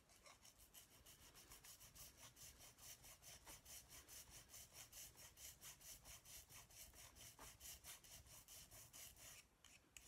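A small hand file rasping quickly back and forth on the metal lugs of a model locomotive chassis, filing them flat. The strokes are faint and even, about three to four a second, and stop shortly before the end.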